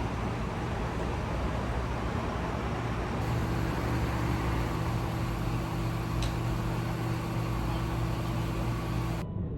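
Steady low rumble of a moving vehicle, a hum under even road-like noise, changing abruptly about three seconds in and again near the end.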